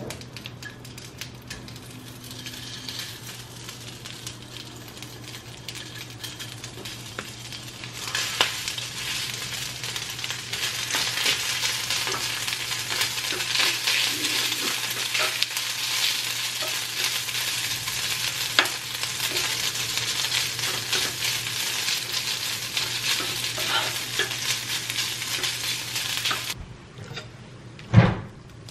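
Food sizzling in a frying pan on a gas stove as it is stirred with a spoon, over a low steady hum. The sizzle gets much louder about eight seconds in and cuts off abruptly near the end, followed by a sharp knock.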